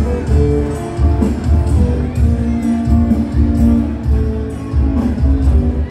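Music played over a PA sound system in a large hall: a heavy, pulsing bass beat under long held melody notes.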